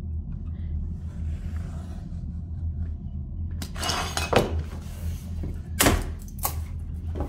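Utility knife scoring a vinyl plank along a plastic speed square: a scraping stroke about halfway in, ending in a sharp click, then a few sharp knocks, over a steady low hum.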